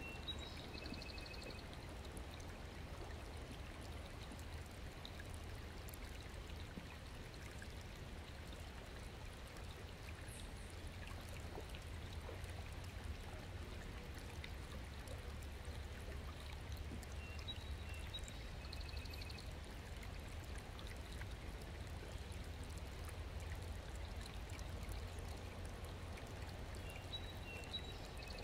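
Small shallow stream flowing and trickling steadily over stones and debris as it refills after a blockage upstream was cleared. A short high chirp repeats every ten seconds or so.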